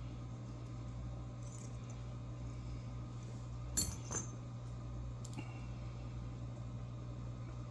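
Small metal clicks and clinks of a padlock being handled with its key and loose parts, two sharp ones a little under four seconds in, over a steady low hum.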